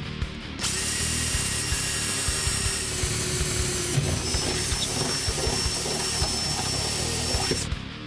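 Cordless drill with a twist bit drilling through the car's sheet-steel inner quarter panel: the drill starts just under a second in, runs steadily with a whine while the bit cuts through, and stops suddenly shortly before the end.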